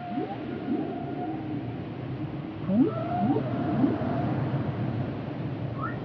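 Humpback whale calling: a series of short rising whoops, with longer wavering moans higher up, over a steady low underwater rumble.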